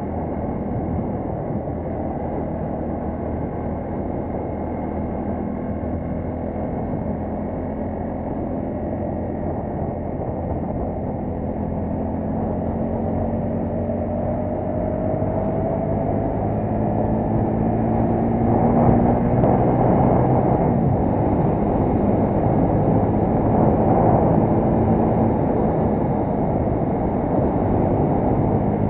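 Motorcycle engine pulling under acceleration over wind rush, muffled on the bike-mounted camera. The engine note rises in pitch part way through and gets louder in the second half as the bike speeds up.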